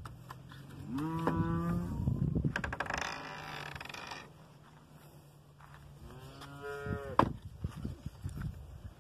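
Cattle mooing, several calls overlapping: long drawn-out calls that rise in pitch at the start, about a second in and again around six seconds in, over a lower, longer moo. A single sharp knock sounds just after seven seconds.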